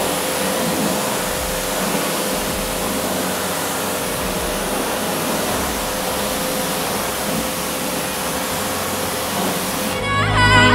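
Pressure washer jet spraying a car's alloy wheel, rinsing off iron-fallout remover, a steady spray that cuts off shortly before the end.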